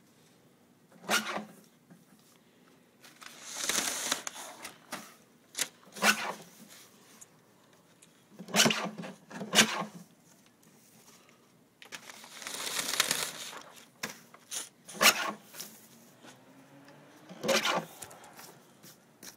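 Sheets of paper sliding and rustling across a work table as they are fed under a mesh roller, with scattered knocks and taps from handling them: two longer rustles and about six sharp taps.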